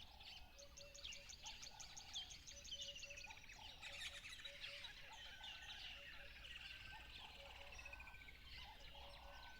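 Faint mix of several wild birds calling and singing at once: rapid high trills, quick chirps and falling trilled phrases overlap throughout, with a short low note repeating over and over beneath them.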